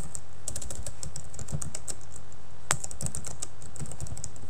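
Computer keyboard typing: a quick, uneven run of keystrokes, with one louder click about two-thirds of the way through.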